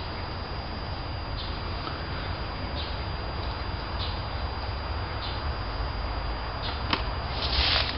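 Outdoor background with a steady low rumble and a short, high bird chirp repeating about every second and a quarter. Near the end comes a sharp click, then a brief, louder rustle.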